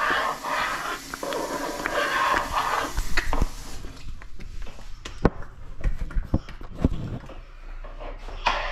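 A spoon stirring and scraping a thick maja blanca batter in a metal frying pan, followed from about four seconds in by scattered knocks and low thumps from the handheld camera being moved and set down.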